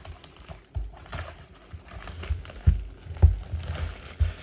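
Sealed trading-card box being opened and handled by hand: crinkling of the wrapping, with several dull knocks of the cardboard box against the table.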